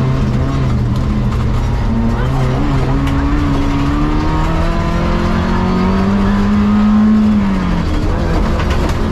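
Renault 18 rally car's engine heard from inside the cabin, pulling under load with its pitch climbing steadily for several seconds, then dropping sharply near the end, over a constant rumble of tyres on the dirt stage.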